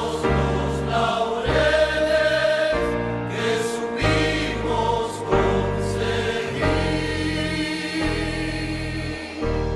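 Music with singing voices over a bass line that changes note every half second or so.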